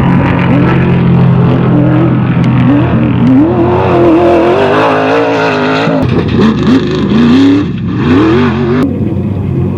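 Off-road race vehicle engine revving hard, its pitch rising and falling repeatedly, with a sudden change in the sound near the end.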